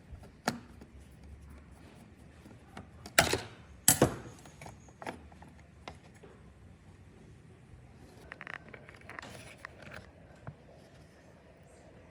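Clicks and clatters of small hard parts and tools being handled, with two loud sharp knocks about three and four seconds in, then a stretch of scraping handling noise near the end.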